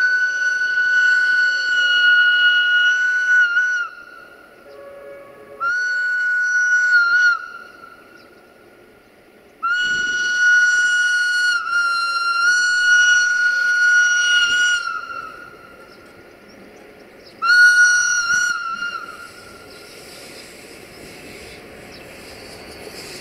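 A train's warning whistle blown four times on one high, steady note: a blast already sounding that stops about four seconds in, a short blast, a long blast of about five seconds, and a shorter one that fades away.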